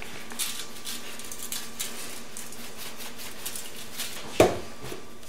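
Pepper shaker shaken over a raw chicken on aluminium foil: a run of soft, quick rattling shakes, then a single louder thump about four and a half seconds in.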